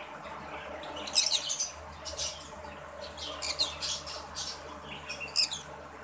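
Small caged parrots chirping and squawking: a series of short, shrill calls, roughly one a second.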